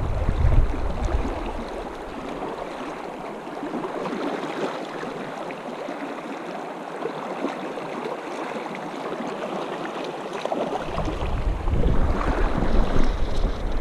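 Shallow river current rushing over a stony bed close to the microphone, with wind rumbling on the microphone at the start and again from about eleven seconds in.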